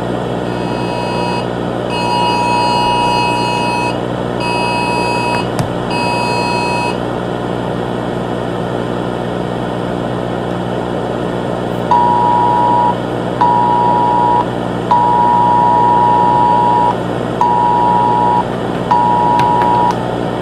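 Emergency Alert System two-tone attention signal sounding in broken beeps over a steady low droning hum. There are four beeps in the first seven seconds, then a louder run of five beeps from about twelve seconds in.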